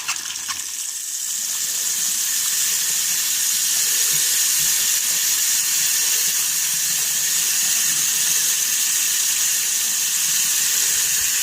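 Bathroom sink tap running, water streaming steadily into the basin with an even hiss.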